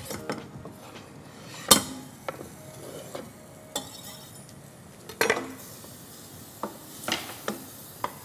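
Chopped onion being scraped off a wooden cutting board with a knife into a stainless steel saucepan, with scattered knocks and clinks of the knife and board against the pot. The loudest knock comes about a second and a half in and another about five seconds in. Near the end a wooden spoon stirs the onion in the pan.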